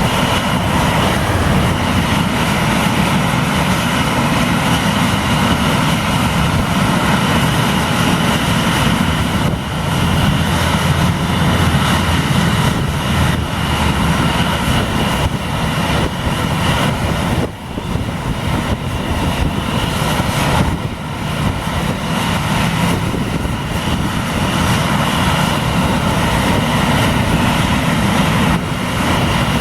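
Airliner engines running loudly and steadily during a takeoff, with one brief drop in level about two-thirds of the way through.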